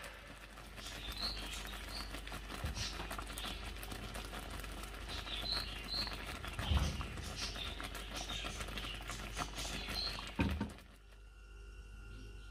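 Thick tamarind and sugar sauce bubbling in a pan as it simmers down: a faint stream of small pops and spatters. It cuts off shortly before the end.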